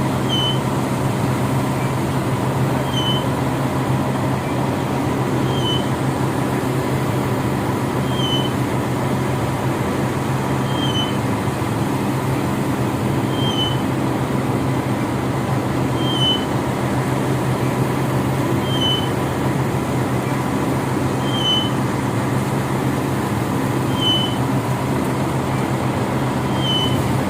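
A heavy diesel engine of concrete-pouring machinery runs steadily at a constant pitch. A short, high chirp repeats evenly about every two and a half seconds over it.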